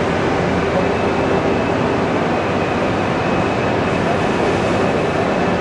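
Honor Seiki VL 160CM vertical CNC lathe running: a steady mechanical noise with a faint steady hum through it.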